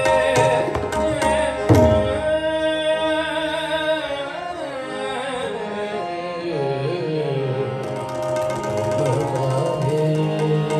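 Sikh kirtan: harmonium holding steady chords under a sung phrase that glides and bends, with tabla accompaniment. There are brisk tabla strokes at first, including a deep bass-drum stroke that slides down in pitch about two seconds in; the drumming then thins in the middle and picks up again near the end.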